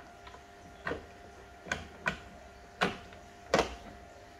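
Plastic parts of a toy Play-Doh train press clicking and knocking together as a shape plate is fitted onto its front: five short sharp clicks about a second in, then spaced roughly every half second to a second, the last two the loudest.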